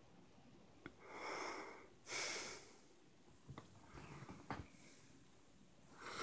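A man breathing close to the microphone: a long breath about a second in, a louder one just after two seconds, and another near the end, with a few faint clicks between.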